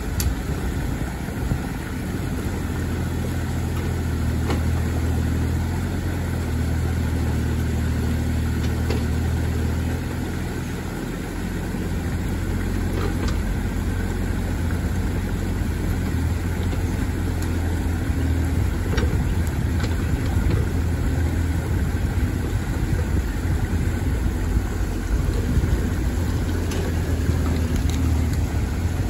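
Bobcat E35 mini excavator's diesel engine running steadily as the arm and bucket work, with a stronger low hum for roughly the first ten seconds. Water rushes through the gap in the dam underneath.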